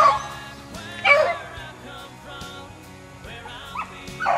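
Beagles baying as they run a rabbit: loud, drawn-out bays at the start and about a second in, a lull, then more bays near the end.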